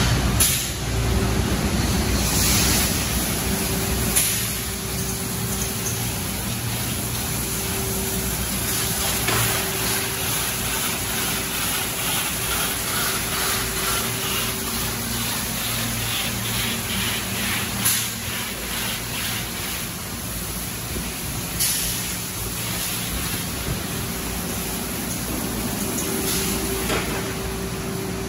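Tunnel car wash machinery running: a steady hum of motors and pumps under spraying water, with short sharp hisses of air several times.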